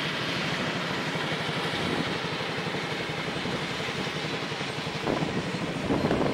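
Steady noisy rumble of a vehicle on the move, heard from on board, with a couple of louder surges near the end.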